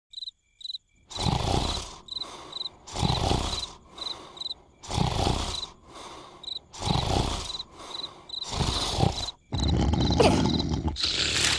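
Cartoon yellow larva snoring loudly, a long rasping snore about every two seconds, five in a row, then a louder, more continuous stretch near the end. Crickets chirp steadily underneath.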